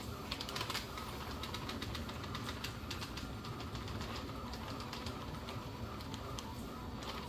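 Potassium nitrate grains poured from a plastic bag into a plastic cup: a running stream of quick, irregular ticks and patters, busiest about half a second in.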